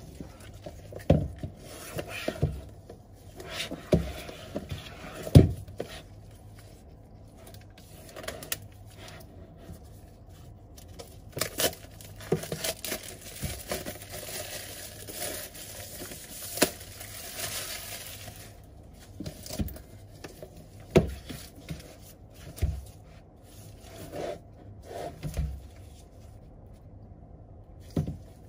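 Unboxing handling: gloved hands knock and scrape the cardboard iPad box, and its clear plastic shrink-wrap crinkles for several seconds midway as it is peeled off.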